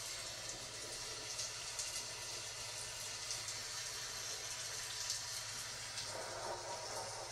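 Steady rain, an even hiss with faint ticks. It grows a little fuller about six seconds in.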